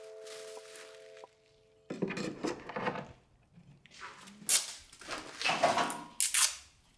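A held music chord dies away in the first second. After a short silence come irregular rustling and knocking as plastic wrapping and small objects are handled on a workbench.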